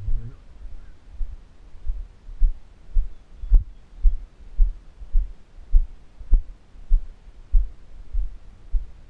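Low thuds of walking footsteps carried through a body-worn action camera, evenly paced at a little under two a second. Two sharp clicks a few seconds apart.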